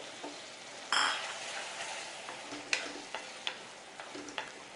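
Raw chicken pieces going into a hot pan of fried onion and mashed tomato masala, with a sudden loud sizzle about a second in that dies down to a steady frying hiss. A spoon then clicks and scrapes against the pan several times as the chicken is stirred.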